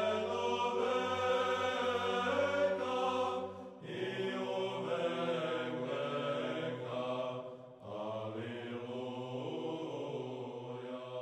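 Sung Orthodox church chant: voices holding long notes in three slow phrases, moving to a new note about four seconds and eight seconds in, with a low drone held under the first phrase.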